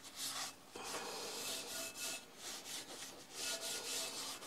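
Paper towel rubbed around the inside of an oiled cast iron loaf pan, a quiet rhythmic scrubbing of about two to three strokes a second.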